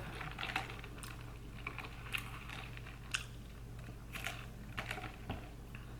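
Close-miked mouth sounds of a person eating and tasting: scattered small wet clicks and smacks of the lips and tongue while chewing.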